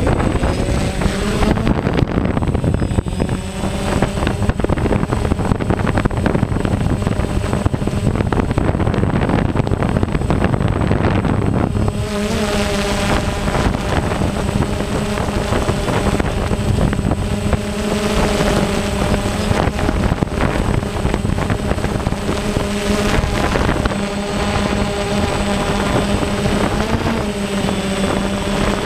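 Quadcopter drone's electric motors and propellers buzzing in flight: a steady hum of several pitches that shifts slightly now and then, coming through more clearly from about twelve seconds in.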